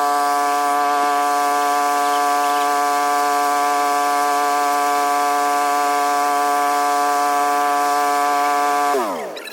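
Small gas engine of a handheld lawn tool running at a steady high speed, then shut off about nine seconds in, its pitch falling fast as it winds down and stops.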